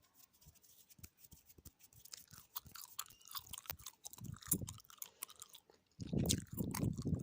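Close-miked gum chewing: wet clicks and smacks that start sparse and come thicker after about a second. Near the end they grow louder, with a muffled low-pitched stretch.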